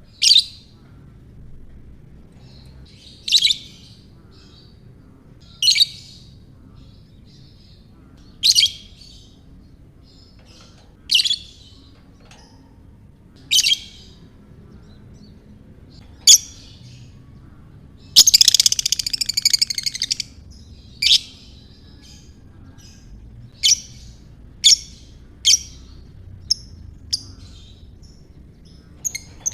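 Lovebird calling: single sharp, high chirps about every two and a half seconds, a chattering trill lasting about two seconds around the middle (the long 'ngekek' chatter), then quicker chirps toward the end.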